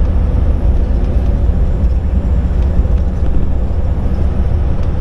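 Inside a semi-truck's cab at highway speed: a steady low rumble of the diesel engine and road noise, unchanging throughout.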